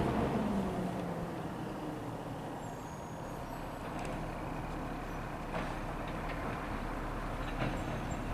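Garbage truck's diesel engine idling at a distance, a steady low hum, with a few light knocks in the second half.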